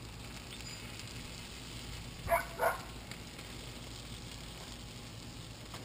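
Melted butter sizzling and crackling in a foil tray of fish on a hot grill, a faint steady crackle. Two short voice sounds come just over two seconds in.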